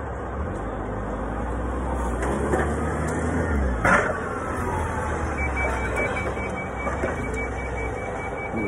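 Engine running with a steady low hum and a sharp knock about four seconds in; from a little past halfway, a forklift's warning alarm beeps in a steady, high-pitched series.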